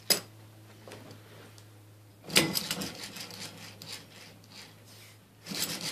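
Homemade model steam engine being turned over by hand: the cast flywheel spins and the threaded piston slides in and out of its tubing cylinder, metal rubbing and rattling in strokes about two seconds in and again near the end. A sharp click right at the start.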